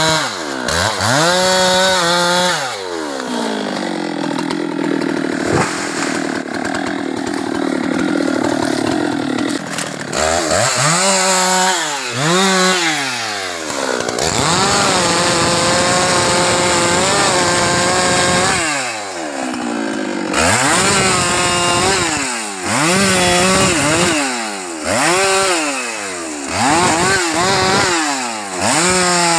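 Husqvarna 390XP two-stroke chainsaw cutting teak wood. The engine revs up and drops back again and again, with two longer steady stretches at full throttle under load.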